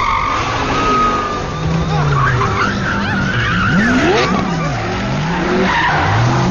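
Sports car drifting: its tyres skid and squeal while the engine revs rise and fall over and over.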